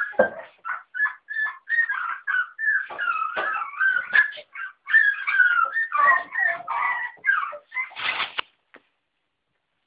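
55-day-old West Highland White Terrier puppies whining and whimpering in a rapid run of short high-pitched cries, some gliding up and down in pitch. They stop about a second before the end.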